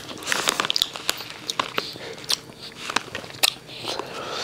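Someone chewing crunchy potato chips, a run of irregular sharp crunches.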